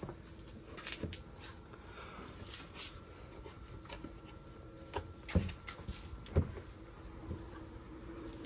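A few faint knocks and clatters of handling as the tail-light opening on the liftgate is cleaned, the loudest a little over six seconds in, over a low steady hum.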